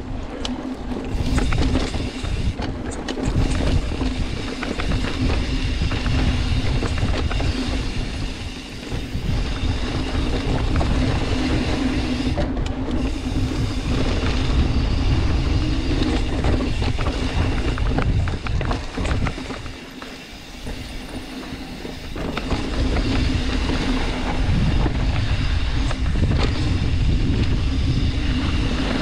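Continuous ride noise from a vehicle travelling over rough ground: rumbling and rattling with wind on the microphone, over a steady low hum. It eases briefly twice, about a third of the way in and again past the middle.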